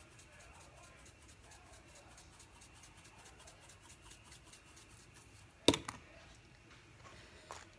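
Plastic seasoning shaker jar of parsley flakes shaken over meat: a soft, quick, even rattle of several shakes a second. About two-thirds of the way through, a sharp knock as the jar is set down hard on the counter, then a lighter click.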